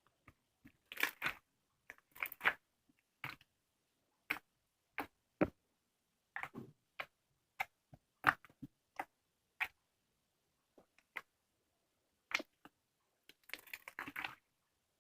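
Slime being squished and worked by hand: scattered sharp clicks and short crackling pops of trapped air, coming irregularly with gaps, and a denser run of crackles near the end.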